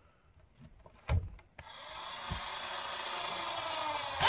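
A knock about a second in. Then a power drill starts driving a screw into wood, its sound growing steadily louder.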